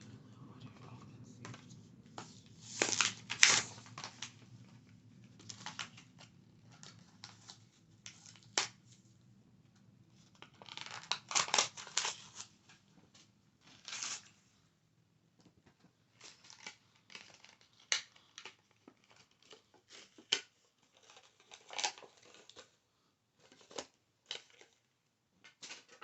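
Close-up ASMR handling of small collectible items: irregular scratchy rustles, crinkles and light taps. The loudest bursts come about three seconds in and around eleven to twelve seconds in, and there are sparser clicks later.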